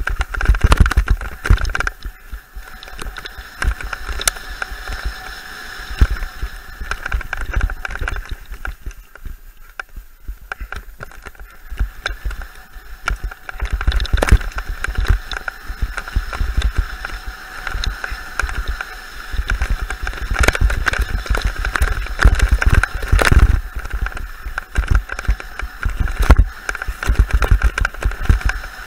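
Mountain bike ridden fast downhill on a bumpy dirt singletrack: continuous trail rattle and knocks with rumbling air noise, and a steady high buzz that fades for a few seconds in the middle.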